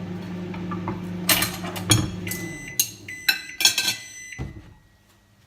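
Microwave oven running with a steady hum that stops about two and a half seconds in, as its short cooking run ends. Several sharp knocks and clatters of dishes come around the stop, and a thin high tone carries on after it.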